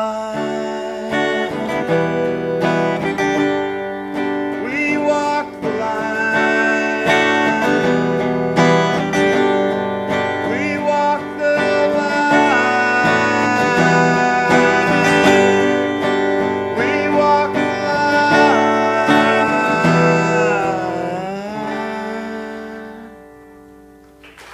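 Acoustic guitar playing the song's closing instrumental passage, with sliding notes here and there; the final chord rings and fades away over the last few seconds.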